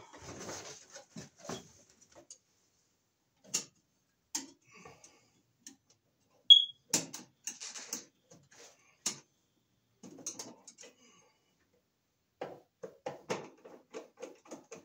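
Handling of a copper ground wire inside a steel breaker panel: scattered clicks and light taps of wire and hands against the metal box, with a quicker run of ticks near the end as the wire is set at the neutral bar. One brief high squeak comes about midway.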